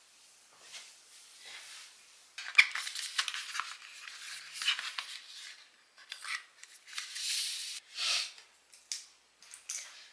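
Hands handling small plastic items: an irregular string of clicks, taps and scraping rubs, including eyebrow razors lifted out of their plastic tray. It is faint for the first couple of seconds, then busier, with the sharpest click a little after that.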